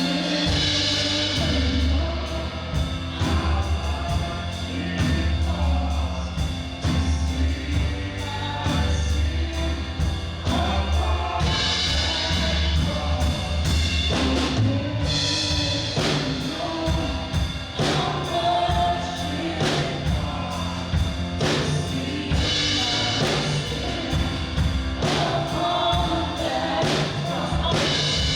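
Congregational worship music: a band with bass and drum kit playing a steady beat while voices sing.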